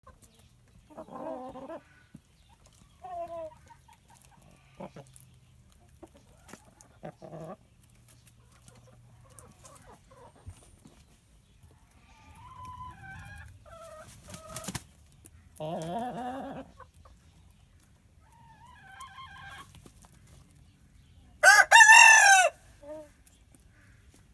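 Hens and roosters clucking and calling in short, scattered bursts. Near the end one rooster crows loudly and briefly.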